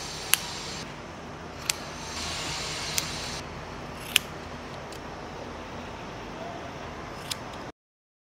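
Hand-held haircutting scissors snipping through hair: five sharp snips about a second and a half apart, the last after a longer pause, over a steady hiss. The sound cuts off abruptly near the end.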